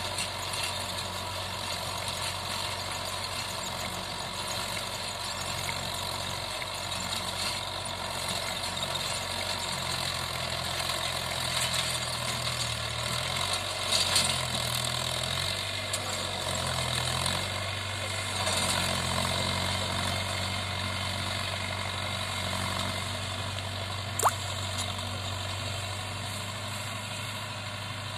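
Mahindra Yuvo tractor's diesel engine running steadily while it drives a 7-foot rotavator through hard soil, the engine note dipping and rising several times around the middle. A single sharp click sounds about three-quarters of the way through.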